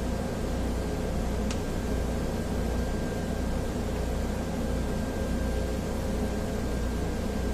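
Steady machine hum and hiss, like a fan running, with a faint steady high whine over it; one light click about a second and a half in.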